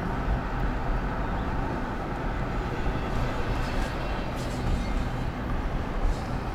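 Steady rumble of road and engine noise inside a moving car.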